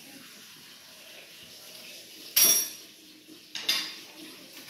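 Dishes clinking: two sharp knocks, the louder one about halfway through ringing briefly, the second a little over a second later.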